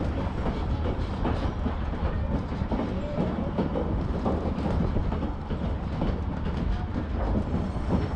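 Passenger train rolling along the track, heard from an open-sided car: a steady rumble of wheels on rail with an irregular rattling clickety-clack.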